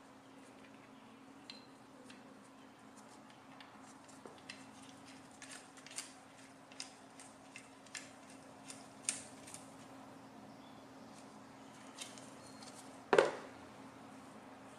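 Small metal clicks and taps as the parts of a Mitutoyo 7003 stand are handled during reassembly, then one much louder knock about 13 seconds in as the assembled stand is set down on the mat. A faint steady hum lies underneath.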